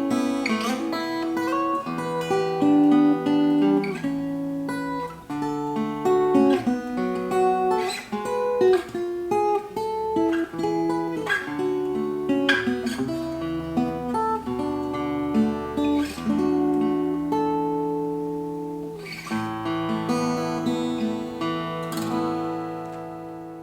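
Yamaha FS-100C steel-string acoustic guitar being played: a run of plucked notes and chords, ending on a chord that rings out and fades.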